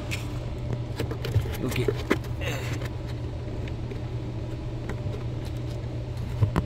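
Scattered plastic clicks and knocks as a wiring connector and the surrounding trim are handled and pushed into place, over a steady low hum.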